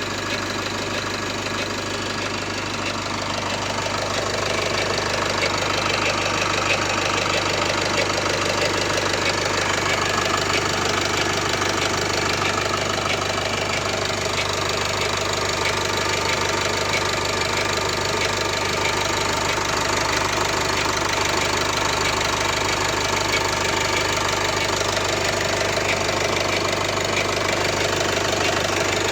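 Nissan M9R 2.0 dCi four-cylinder diesel engine running steadily after a cold start, with an abnormal extra noise that occurs only when cold and goes away once the engine warms up.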